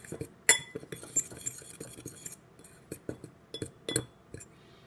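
Spoon clinking and tapping irregularly against a bowl while dry flour-and-salt mix is handled: about a dozen sharp clinks, the loudest about half a second in.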